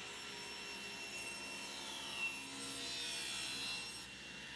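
SawStop table saw running with a steady whine as its blade rips a narrow board to width; about two seconds in, the pitch sags slightly and recovers as the blade takes the cut.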